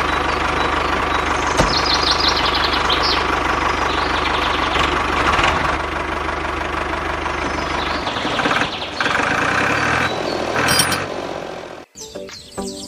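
Mini tractor running with a steady engine sound and a low pulse, changing in character about eight seconds in and cutting off abruptly near the end.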